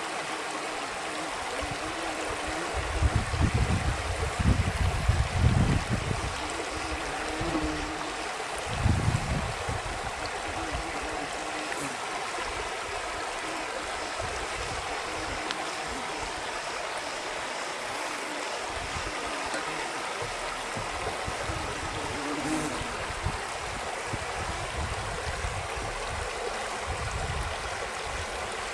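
Steady rush of a stream's flowing water, with louder low rumbles from about three to six seconds in and again around nine seconds.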